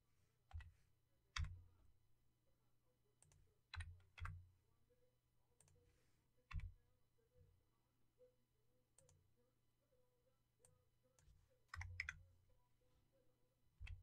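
Sparse, faint clicks of computer keys and mouse buttons: about a dozen single clicks and a few quick pairs, spaced unevenly.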